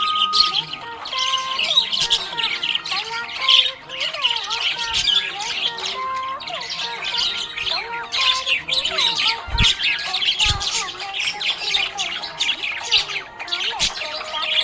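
Budgerigars chirping and squawking in a dense, continuous chatter of fast, short, high calls.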